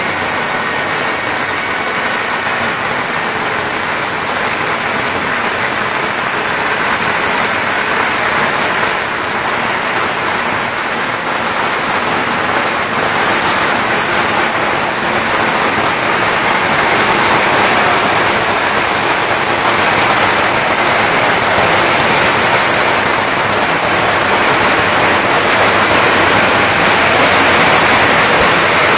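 Strings of firecrackers burning in the street, a dense, unbroken crackle of small bangs, growing a little louder in the second half.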